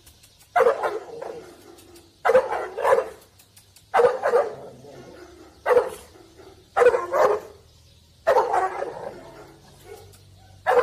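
Large black mastiff-type dog, a Cane Corso, barking over and over, the barks coming in pairs about every one and a half seconds.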